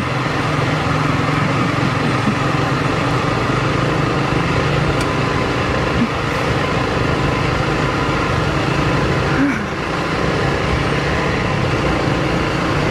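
Single-cylinder engine of a Honda CRF Rally motorcycle running steadily under way on a gravel road, with wind and road noise over it; the level dips briefly about nine and a half seconds in.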